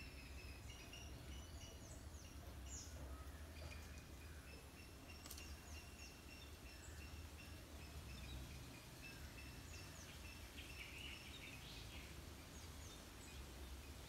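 Faint bird calls in forest: many short, high chirps and whistled notes repeat throughout, with a brief louder flurry of chirping near the end, over a steady low background rumble.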